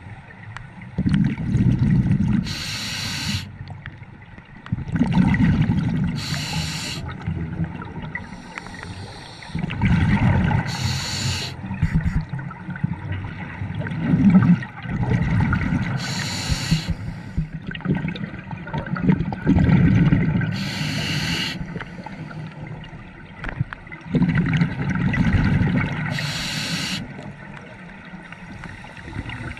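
Scuba diver breathing through a regulator underwater: a low bubbling rumble of exhaled bubbles, then a short hiss of inhaled air, about six breaths at one every four to five seconds.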